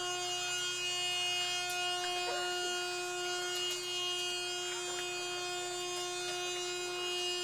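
A steady buzzing hum on one unchanging pitch, with a few faint ticks over it.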